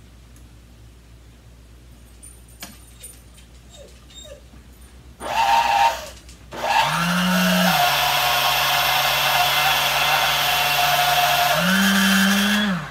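Vintage Sunbeam Mixmaster portable mixer's electric motor and beaters running, after a few light clicks of handling. It runs briefly about five seconds in, stops, then runs again for about six seconds, its pitch dropping soon after starting and climbing again shortly before it is switched off. The motor sounds rough and buzzing, not healthy at all in the owner's judgement.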